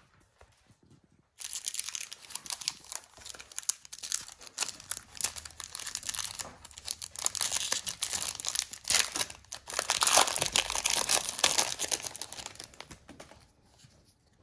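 Foil wrapper of a 2020 Topps Series 1 baseball card pack crinkling and tearing as it is pulled open by hand. It starts suddenly about a second in and dies away near the end.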